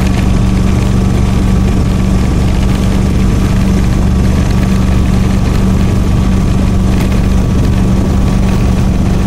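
A small vehicle's engine running steadily while driving along a paved road, a constant drone that holds one pitch, with road and air noise.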